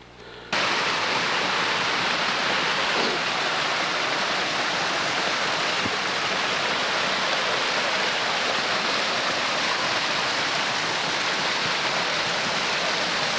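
Steady rush of water from a mountain brook, a constant hiss that starts suddenly about half a second in.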